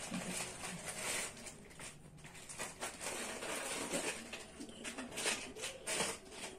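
Handling sounds of puja offerings being set out on a stone floor: irregular soft rustling and light taps, with a plastic bag crinkling.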